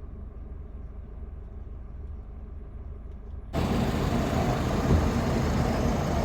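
Low, steady vehicle engine rumble, then an abrupt cut about three and a half seconds in to louder, noisier vehicle and road sound.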